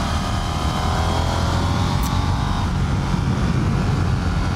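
Motorcycle engine pulling under acceleration, its pitch rising over the first couple of seconds, under a heavy low rumble of wind on the microphone at road speed.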